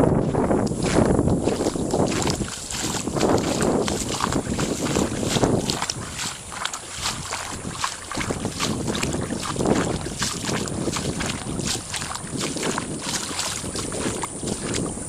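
Floodwater splashing and sloshing, with gusts of wind buffeting the microphone and a constant fine crackle.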